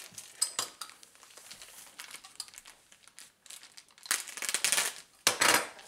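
Clear plastic bag around a stack of comic books crinkling as it is handled and slit open with a dull box cutter, with two louder ripping stretches of the plastic near the end.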